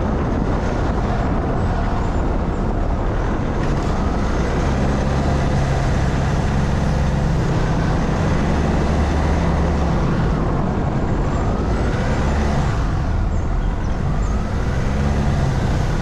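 Vehicle engine running with road noise while driving, a steady low hum under a wash of noise.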